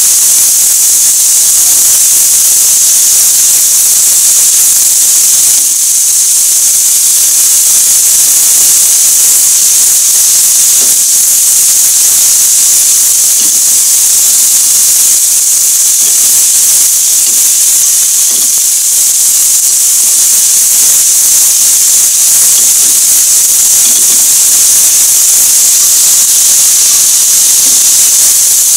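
Chicken pieces sizzling in a frying pan as they are stir-fried, a loud steady hiss.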